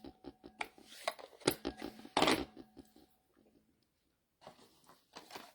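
Paper and craft tools being handled on a work table: a run of small clicks and taps, with two louder knocks about one and a half and two seconds in, a short quiet gap, then a few more light clicks.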